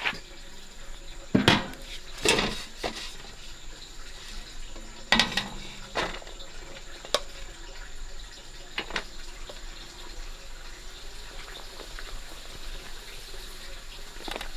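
Kitchen work with water and dishes: about half a dozen sharp clanks and knocks of pots, bowls or utensils being handled, scattered through the stretch over a faint steady hiss.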